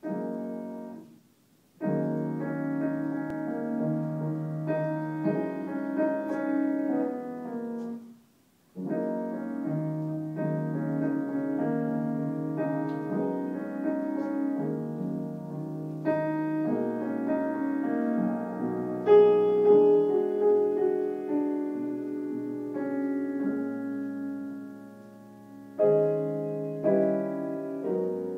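Piano being practised: chords and a melody played in phrases that break off twice, shortly after the start and about eight seconds in, then start up again.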